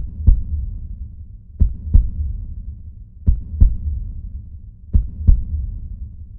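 Heartbeat sound effect: a slow lub-dub, four double thumps about 1.6 seconds apart, each pair a third of a second between its beats, with a low rumble in between.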